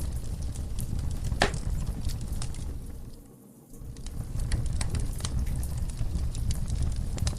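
Wood fire burning in a fireplace: a steady low roar with scattered sharp crackles and pops. The sound drops away almost completely for about half a second around three and a half seconds in, then picks up again.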